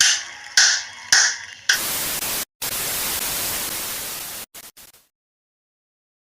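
Static-noise sound effect: a few sharp, bright hits, then about three seconds of loud, even hiss like TV static that cuts off suddenly, leaving silence.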